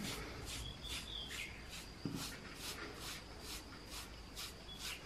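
Wet paintbrush scrubbing along the edge of fresh cement, faint scratchy strokes about three times a second, smoothing off the cement edges.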